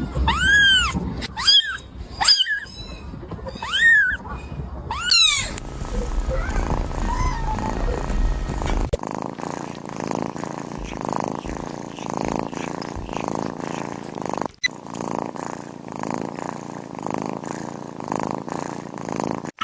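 A kitten gives a string of about six high-pitched meows, each rising and falling in pitch, over the first five seconds or so. From about nine seconds in, a cat purrs steadily.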